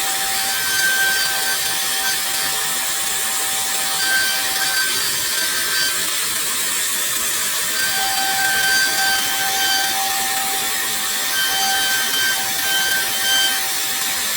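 CNC router spindle cutting wood: a steady high hiss with a thin whine over it. The whine drops out for about three seconds near the middle, then returns.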